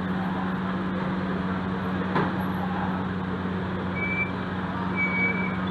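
Steady low hum of kitchen machinery with a constant drone, a single sharp slap about two seconds in, and a few short high clinks toward the end.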